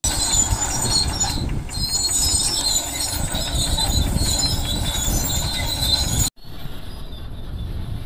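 Crawler bulldozer working: the diesel engine rumbles under the squealing and clanking of its steel tracks. About six seconds in, the sound cuts off for a moment and comes back quieter.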